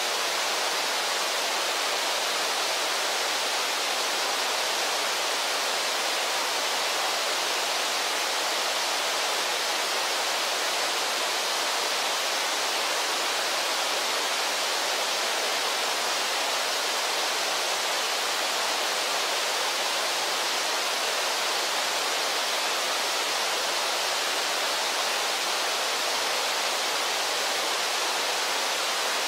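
Rushing water of a river waterfall and rapids: a steady, even noise with no breaks.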